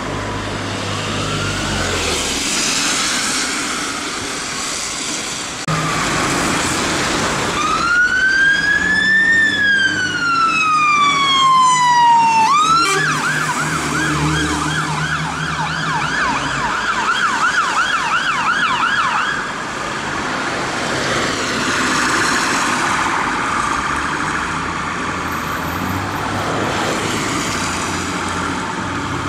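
Dennis Sabre fire engine's electronic siren: one slow wail that rises and then falls, switching to a fast repeating yelp for several seconds, then dropping away as the engine passes. Traffic noise runs underneath.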